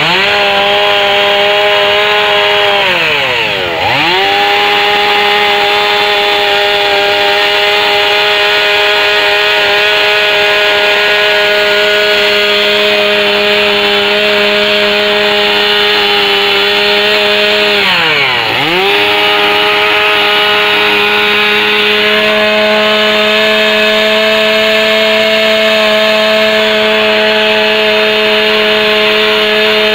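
Two-stroke chainsaw running at high revs as it carves into a log. Its engine pitch drops sharply and climbs straight back twice, near 4 seconds in and about two-thirds of the way through, then holds steady.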